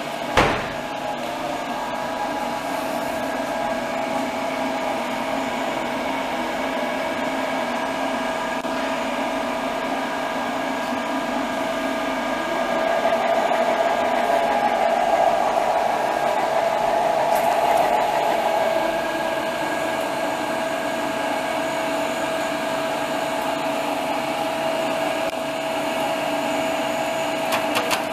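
Morton 830 PCB preheater running: a steady blower whir with a held tone, louder for a few seconds midway. A sharp knock about half a second in.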